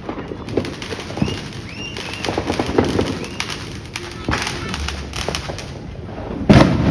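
Fireworks going off: a run of scattered pops and bangs, with a loud bang about six and a half seconds in.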